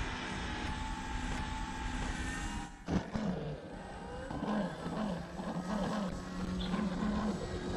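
Electric motor and propeller of a Flex RV-8 60E RC model airplane running at low throttle on landing. The pitch is steady at first, then wavers up and down from about three seconds in as the plane touches down and rolls out.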